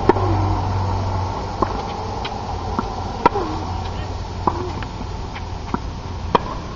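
Tennis rally on a hard court: a string of sharp pops as the ball is struck by the rackets and bounces on the court, roughly one every half second to second, over a steady low background hum.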